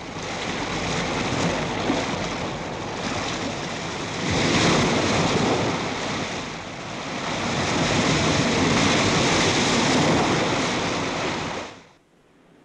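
Sea surf breaking on a rocky shore, swelling and ebbing in long surges, then cutting off suddenly near the end.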